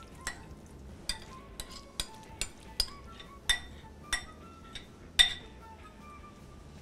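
A utensil clinking and knocking against the rim of a glass bowl as a rice mixture is scraped out into a frying pan: about ten sharp clinks, the loudest about five seconds in. Soft background music plays underneath.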